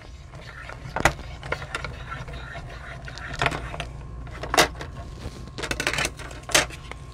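Hand-cranked mini die-cutting machine (a Mini Big Shot) rolling a metal die and cutting-plate sandwich through its rollers, a low steady rumble as the crank turns, with several sharp clicks and knocks. The die is cutting a stamped paper image.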